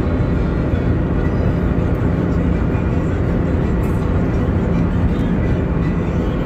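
Steady low rumble of road, tyre and engine noise inside a car cruising at highway speed.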